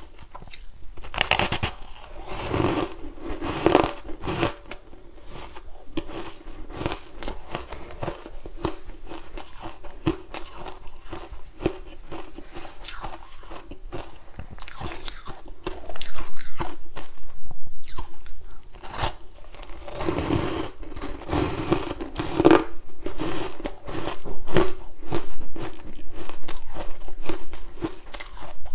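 A person biting into and chewing ice, close to the microphone: a run of irregular crisp crunches, with louder clusters about halfway through and again a few seconds later.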